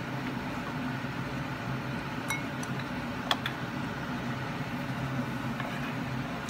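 Chopsticks and a metal spoon clicking lightly against a ceramic bowl while shrimp are turned in a flour coating: a few clicks a little past two seconds in, the sharpest at about three seconds. Under them, a steady mechanical hum from a kitchen appliance runs on.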